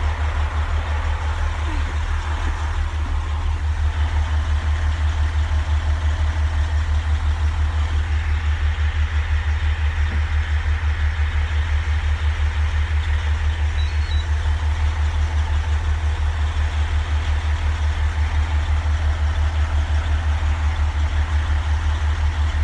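Military cargo truck's diesel engine running steadily, heard from inside the cab as a low, evenly pulsing rumble.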